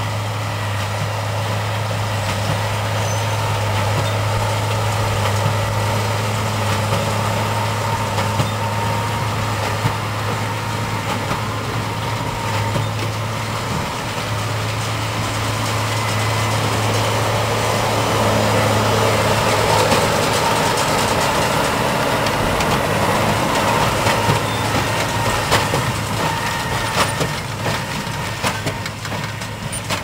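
New Holland T7060 tractor's six-cylinder diesel running steadily under load, pulling a New Holland D1210 large square baler that is baling straw. The engine hum grows louder for a while past the middle, and a few sharp knocks from the working baler come near the end.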